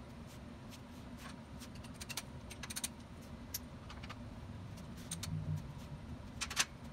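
Scattered light metallic clicks and taps from hand tools working on a steel post clamped to a steel fixture table, with a quick run of clicks about two to three seconds in and the sharpest cluster near the end, over a steady low hum.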